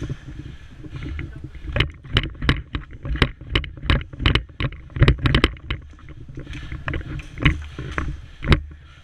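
A string of sharp clicks and knocks over a low rumble of movement, irregularly spaced, with a quick burst of four or five together near the middle.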